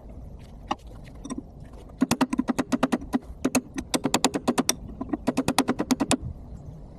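Hammer blows on a steel chisel, sharp metal-on-metal strikes coming in three quick runs of many rapid hits, with a few lighter clicks before them; the rapid pace comes from footage sped up four times.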